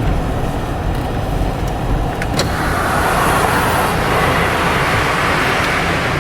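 Car cabin noise: steady engine and road rumble. A sharp click comes about two seconds in, and after it a louder hiss of air and road noise carries on.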